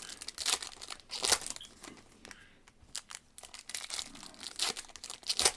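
Trading-card pack wrappers crinkling and tearing as packs are ripped open and handled, in irregular crackly bursts, loudest about a second in and again near the end.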